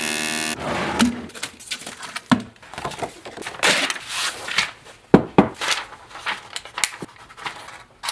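A power tool running steadily stops abruptly about half a second in. Irregular knocks, clinks and short scrapes of tools and metal being handled follow, the loudest a pair of sharp knocks a little past the middle.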